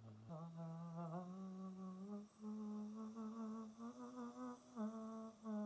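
A man's voice singing a vocal warm-up exercise on an open vowel, stepping up and back down through a short run of held notes. The tone is breathy, more breath than full singing.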